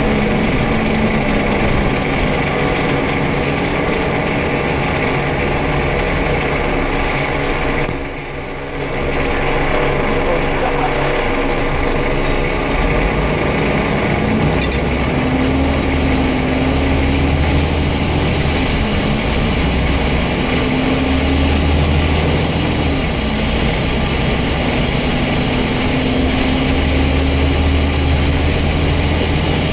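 Onboard engine sound of a Scania N94UD double-decker bus, from its five-cylinder 9-litre diesel. It runs steadily for the first half with a brief dip in level about 8 s in. From about 14 s the bus accelerates and the engine note climbs three times in succession.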